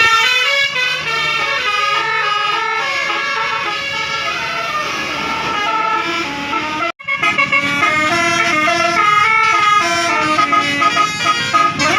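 Basuri telolet multi-trumpet bus air horn playing a fast melody of loud stepping notes. The sound cuts out for a moment about seven seconds in, then the horn melody carries on.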